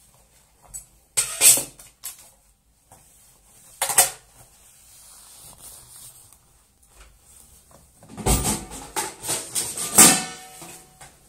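Household items knocking and clattering on a marble bathroom countertop as they are picked up, moved and set down during cleaning. There are single knocks about a second and a half in and about four seconds in, and a quick run of clatters near the end.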